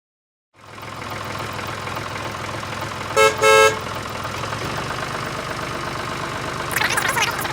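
A mini tractor's motor starts about half a second in and runs steadily, with two short horn toots about three seconds in. Near the end there is a burst of high, jittery sound over the running motor.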